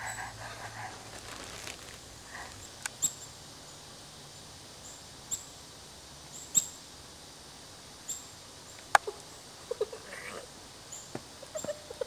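Small wild songbirds calling with short, high chirps every second or so, with a few sharp ticks among them.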